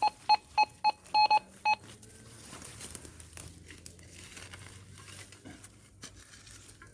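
Metal detector giving a run of short, sharp beeps of one fixed pitch over the first couple of seconds, signalling metal under the coil, then faint rustling of brush and tall grass.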